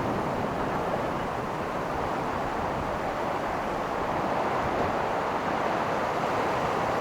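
Ocean surf washing onto a beach: a steady rushing wash of waves, easing slightly in a lull between breakers.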